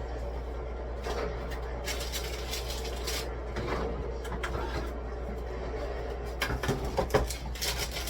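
Groceries and containers being handled and set down on shelves and counters: scattered knocks and clatter, with a run of sharper knocks near the end, over a steady low hum.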